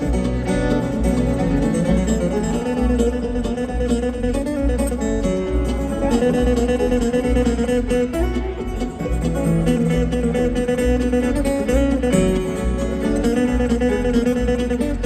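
Live bluegrass band playing an instrumental break, with picked acoustic guitar to the fore over a steady pulsing bass beat and strummed rhythm.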